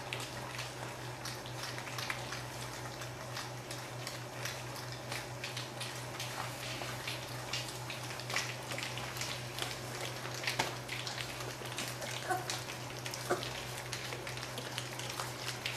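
Greater Swiss Mountain Dog puppies lapping and smacking at wet puppy mush in their bowls on their first solid meal: a continuous, irregular patter of small wet clicks and slurps over a steady low hum.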